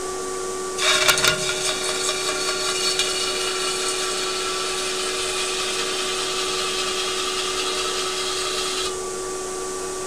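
Metal spinning lathe running with a steady hum while an aluminium pot blank turns on its mandrel. About a second in, the tool meets the spinning aluminium with a few clicks, then a loud scraping hiss full of high ringing tones. The hiss holds for about eight seconds and cuts off abruptly near the end, leaving the hum.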